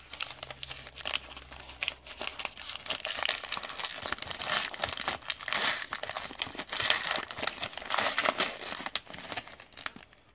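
Foil wrapper of a Panini Black Gold trading-card pack being torn open and crinkled by hand: a continuous run of sharp, irregular crackles and crinkles.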